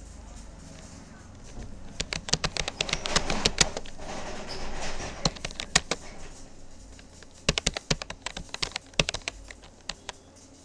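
Typing on a Rapoo computer keyboard: a run of rapid keystroke clicks starts about two seconds in, pauses briefly, then starts again.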